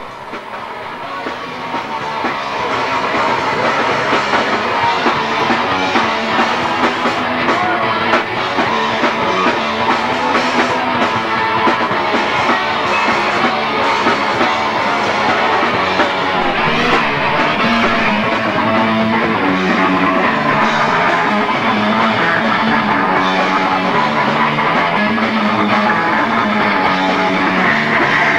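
Rock music with guitar and drums, fading in over the first few seconds and then playing loud and steady.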